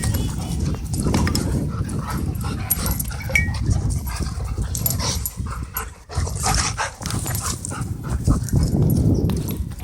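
Dogs playing rough together, with dog vocal sounds throughout.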